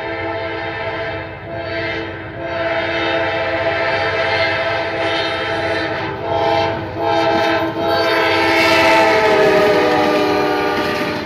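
Diesel locomotive air horn being test-sounded: a loud chord of several notes held in long blasts with a few brief dips, cutting off just before the end. The locomotive's diesel engine runs underneath.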